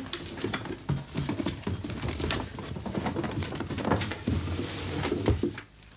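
Hands emptying a wooden drawer: cloth and papers rustling as they are lifted out, with small knocks and scrapes against the wood. The handling dies down just before the end.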